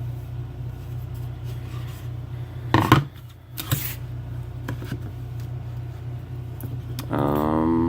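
Small metal clicks and knocks from handling a lock cylinder and tools, the loudest about three seconds in, over a steady low hum.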